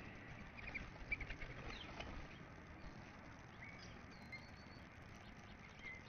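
Faint small-bird chirps and short calls around a bird bath, with a quick run of soft taps and flutters about a second in.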